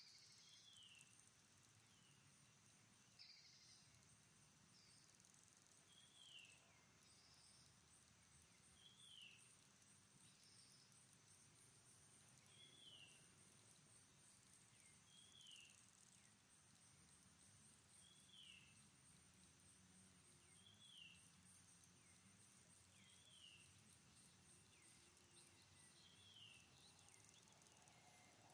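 Faint outdoor ambience: a high, steady, pulsing insect trill, with a short falling chirp repeated about every two to three seconds.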